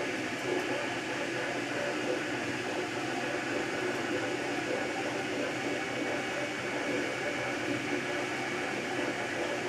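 MakerBot Replicator 2 3D printer running mid-print: the stepper motors whine steadily as they move the extruder head back and forth, over the hum of the extruder's cooling fan.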